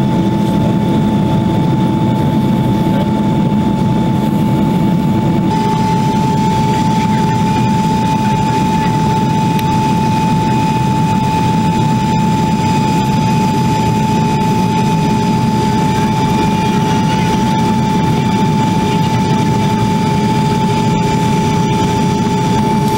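Steady jet airliner cabin noise heard from a window seat over the wing, a deep rushing hum with a constant high whine; about five seconds in, higher whining tones join it. The wing flaps are extended for the approach.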